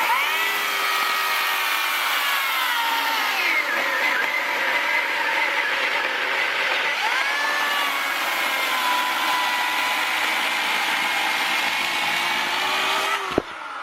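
Electric chainsaw with a freshly self-sharpened Oregon chain, running and cutting through a log. It is a steady motor whine whose pitch sags twice as the chain bites into the wood, then cuts off suddenly near the end.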